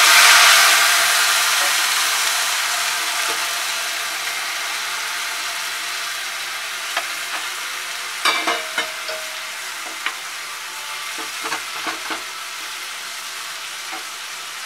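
Hot sugar syrup sizzling in ghee-fried vermicelli in a non-stick kadai, loud at first and slowly dying down. In the second half a silicone spatula stirring in the pan knocks a few times.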